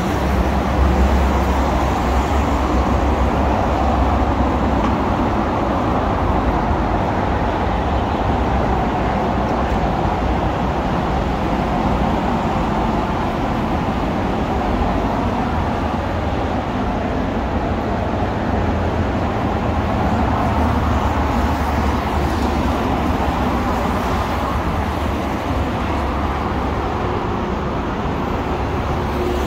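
Steady noise of heavy traffic on a busy multi-lane highway, with a deep low rumble throughout.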